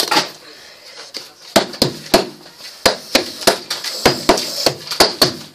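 Small hard objects handled close to the microphone: a quick, uneven series of clicks and knocks, about four a second, starting about a second and a half in.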